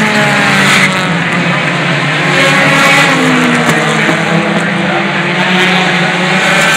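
Several short-track stock cars racing on an asphalt oval, their engines overlapping, each rising and falling in pitch as the cars pass through the turn.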